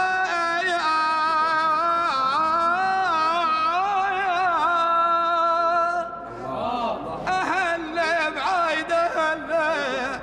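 A solo voice singing a long, ornamented Middle Eastern melodic line with wavering pitch. The notes are held through the first six seconds, then break into shorter phrases.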